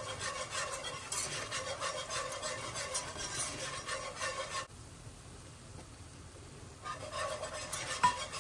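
Wire whisk scraping and swishing in quick strokes around an enameled cast-iron pan, stirring a butter-and-flour roux. The strokes stop for about two seconds midway, then resume, with one sharp tap of the whisk against the pan near the end.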